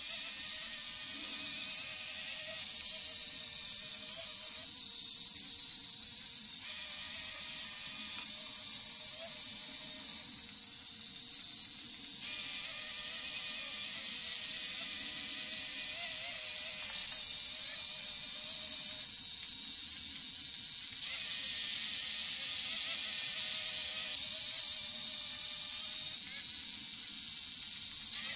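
Small electric drive motors of a miniature tracked robot whining as it drives over a tile floor. The sound steps up and down in loudness and pitch every two seconds or so as the motors change what they are doing.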